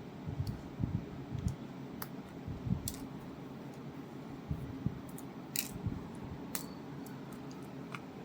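Scattered small clicks and short low knocks of tools and fingers working on a smartphone being taken apart for repair, with a few sharper clicks about halfway through.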